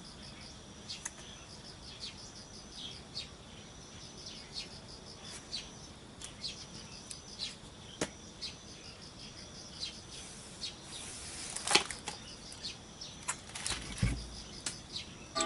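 Scattered clicks and light knocks of a scooter's plastic air-cleaner box and lid being handled and taken apart, with a dull thud near the end as a part is set down. A faint steady high-pitched tone runs underneath.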